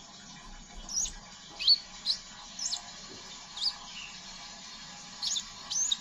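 Male crimson sunbird giving rapid, sharp, high-pitched chirps (ngeriwik), each sweeping downward, about seven at irregular intervals, the loudest a little under two seconds in.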